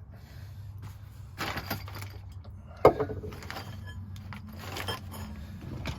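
Hand tools, PEX pipe and fittings being handled: scattered scraping and clicking with one sharp knock a little before halfway, over a low steady hum.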